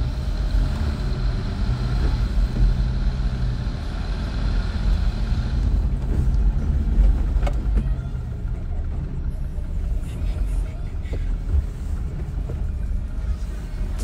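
Jeep engine running steadily at low crawling speed, a continuous low hum.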